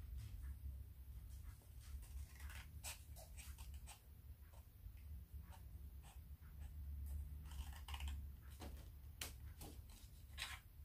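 Small scissors snipping through folded paper: a scattering of faint cuts and paper rustles, in small clusters, over a low steady background rumble.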